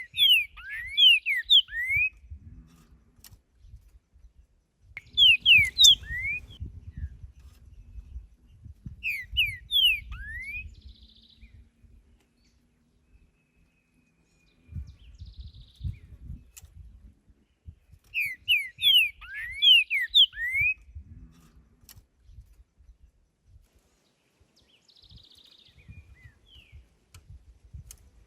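Green-winged saltator (trinca-ferro) singing: short phrases of clear, loud whistled notes that slide down and up, repeated four times with pauses of several seconds between them. Faint low rumbling runs underneath some of the phrases.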